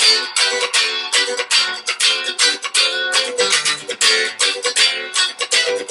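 1956 limited-edition Fender Stratocaster with a roasted-ash body, heard through an amplifier on its fourth pickup-selector position (neck and middle pickups together), played as a funky rhythm part of short, choppy strums, several a second.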